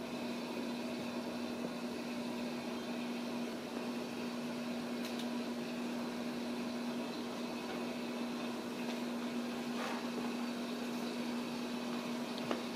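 A steady mechanical hum holding one constant tone over an even hiss, with a few faint clicks, the sharpest near the end.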